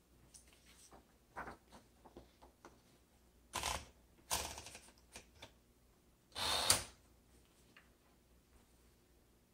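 Smith-Corona Galaxie 12 manual typewriter being handled: a scatter of small mechanical clicks, then three short, louder clattering rattles.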